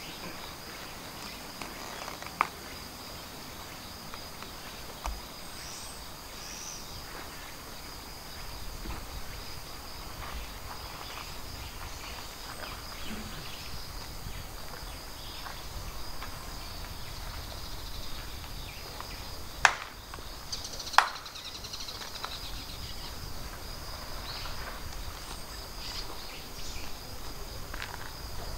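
Steady high-pitched chorus of insects chirring, with a few faint clicks and two sharp loud cracks a little over a second apart about two-thirds of the way through.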